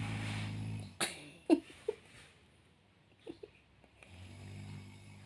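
Snoring in sleep. One low rumbling snore fades out about a second in, and another begins about four seconds in. A few short sharp sounds come in between.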